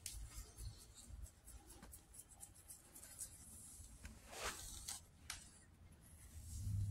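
Faint scratchy rustling and small clicks of fingers parting and working through long hair, with one louder scratchy rub about four and a half seconds in.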